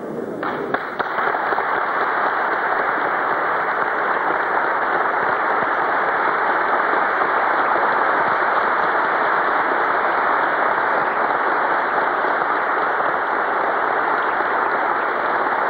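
Audience applauding, the clapping building over the first second and then holding steady.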